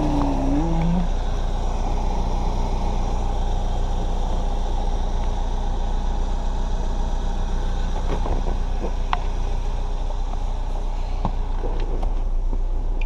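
Steady low rumble of an idling vehicle engine, with a few faint clicks and taps about eight and eleven seconds in.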